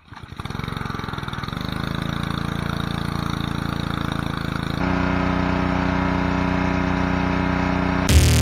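Small gas engine on a Ryobi pressure washer with a Honda engine, pull-started and catching at once, then running steadily; about halfway through it gets louder.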